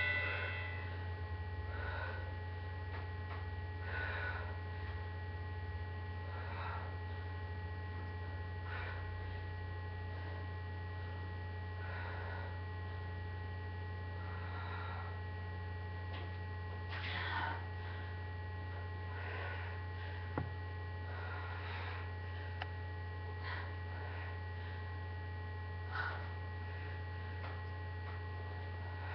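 Steady low electrical mains hum with a few thin steady tones above it. Faint soft noises come about every two seconds.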